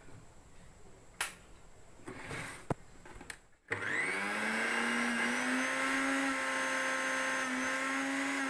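A few light clicks of handling, then a bit past halfway the mixer grinder's motor switches on, spins up quickly and runs at a steady whine. This is a test run after greasing the motor, and the running sounds good.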